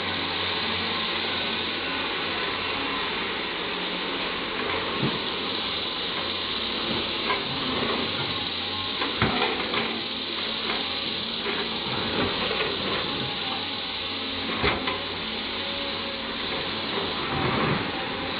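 CAT 320D hydraulic excavator at work: its diesel engine runs steadily while the steel bucket scrapes and crunches through loose coal, with several sharp knocks scattered through the middle.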